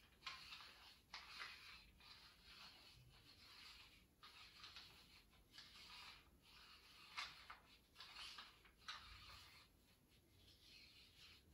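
Faint rubbing strokes of hands massaging a person's head and back, skin and hair brushing under the palms, about one stroke a second.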